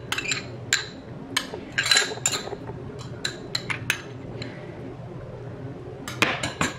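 A spoon clinking and scraping against a small glass bowl as cream is scraped out of it into a pan. There is a quick string of sharp clinks over the first few seconds, a lull, then a few more clinks near the end.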